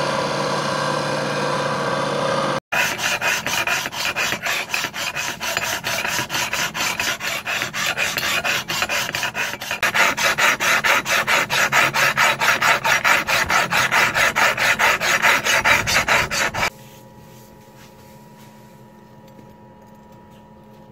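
A steel hand file scraping along the edge of a steel knife blade cut from an old circular saw, in fast even strokes about three a second, louder in the second half and stopping abruptly a few seconds before the end. For the first two or three seconds a power grinder runs steadily on the blade before cutting off suddenly.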